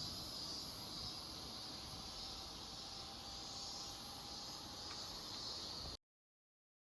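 Insects calling steadily over a faint hiss of outdoor ambience, cutting off abruptly about six seconds in.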